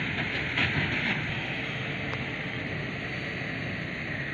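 Turbocharged, intercooled Hattat 398 4x4 tractor's diesel engine running steadily while pulling a working New Holland BB960 large square baler, a continuous mechanical din of engine and baler, with a brief louder rush about half a second in.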